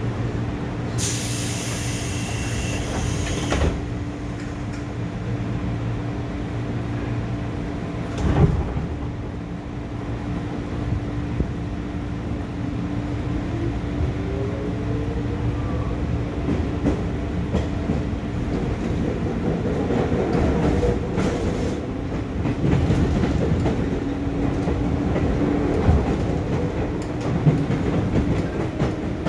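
Inside a JR East 205 series 1100 subseries motor car: a brief high sound early on, then the doors shut with a knock about eight seconds in. The train then pulls away, its DC traction motors under field-added excitation control whining and rising in pitch, with the wheels clacking over rail joints.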